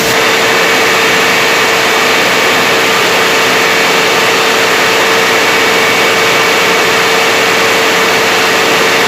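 Generator running steadily during a load test: a loud, constant engine-and-fan noise with a steady whine.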